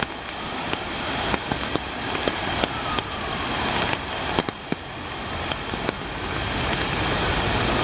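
Rushing creek floodwater: a steady, noisy roar of fast-flowing water with scattered sharp clicks and ticks, growing louder over the last few seconds.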